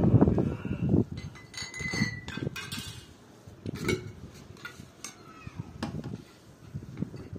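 Tableware clinking: spoons and dishes knocking together a number of times, one clink ringing briefly about two seconds in.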